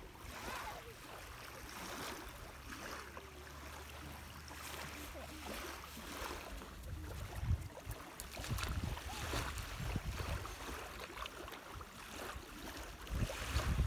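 Lake-shore ambience: small waves lapping at a sandy beach, over a low steady rumble.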